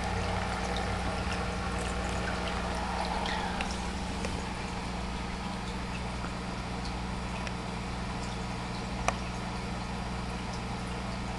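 Aquarium filtration running: the steady electric hum of the pumps under a continuous trickle and splash of water from the filter return, with one sharp click about nine seconds in.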